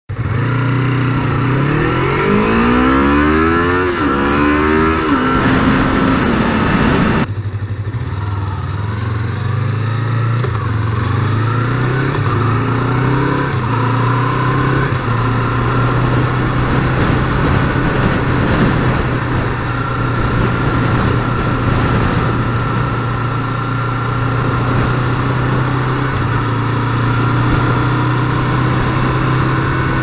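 Yamaha MT-25's 249 cc parallel-twin engine and exhaust, heard from the rider's seat. It accelerates hard in the first few seconds, its pitch climbing and dropping through several upshifts. After an abrupt change about seven seconds in, it makes a few shorter pulls and then settles into a steady cruising note.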